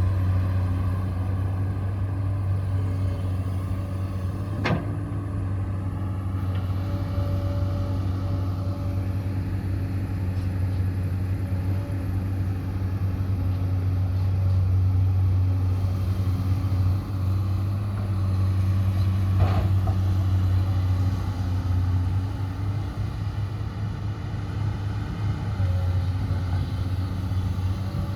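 Radio-controlled construction truck running with a steady, low engine-like drone, broken by two sharp clicks about fifteen seconds apart.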